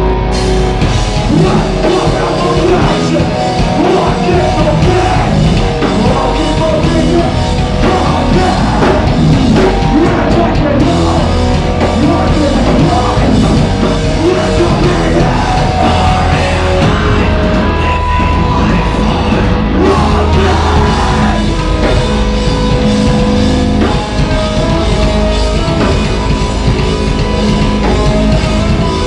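Metal band playing live at full volume: distorted guitars, bass and pounding drums with shouted vocals. The full band comes in right at the start after a guitar-led passage.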